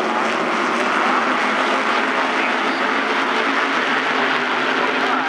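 Pack of SK Light Modified race cars running at speed, many engines overlapping in a steady din.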